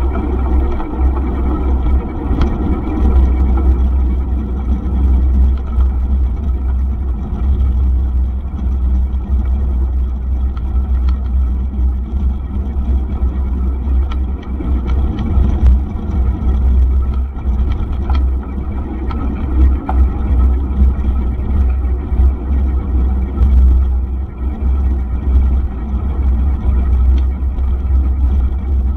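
Heavy, fluttering wind rumble on the microphone of a camera moving at cycling speed on a mountain bike, over tyre noise from rolling on a forest road, with a few scattered light clicks.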